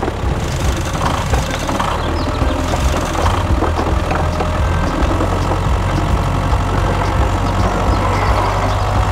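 Low, steady tractor engine running sound as the toy mini tractor drives through sand, pulling its trailer.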